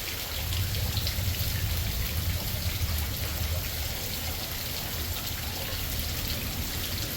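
Steady rain falling, a constant hiss, with a low rumble that swells about half a second in and carries on underneath.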